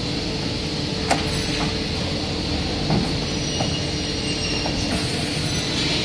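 Factory machinery humming steadily while an aluminium window frame is worked at a corner crimping machine, with metal-on-metal clicks and knocks: a sharp click about a second in, a duller knock near three seconds and a few lighter ticks.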